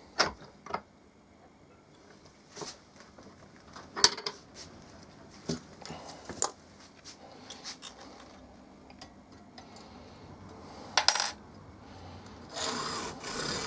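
Scattered light metallic clinks and taps as a steel bolt and tools are handled and set up. Near the end come a few slow hacksaw strokes, starting a cut through the bolt.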